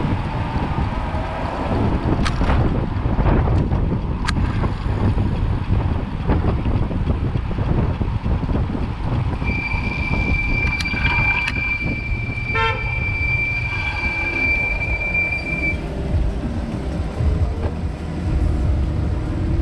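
Wind and street-traffic rumble on a moving bicycle, with a steady high-pitched squeal held for about six seconds midway.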